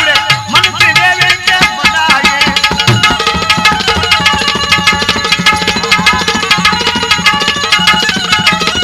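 Live folk music with no singing: a tabla plays a fast, dense rhythm over steady held notes from a melody instrument.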